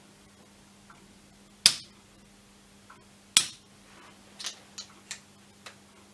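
Spring-loaded Activator chiropractic adjusting instrument firing twice against the patient's spine, two sharp clicks about a second and a half apart. Several fainter clicks follow in the second half.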